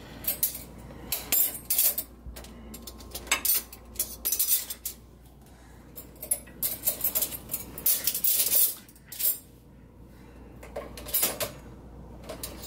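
Metal forks and spoons clinking and rattling against each other and a dishwasher's plastic cutlery basket as they are pulled out by hand. The clinks come in irregular clusters with short quiet pauses between.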